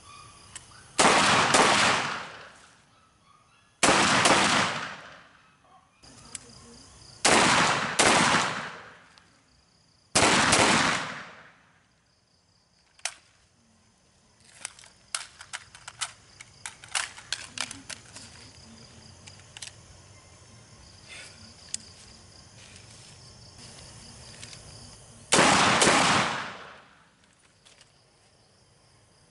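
Gunfire at a shooting range: loud shots about three seconds apart through the first ten seconds and again near the end, each echoing away over a second or so. In between comes a run of faint, sharp clicks.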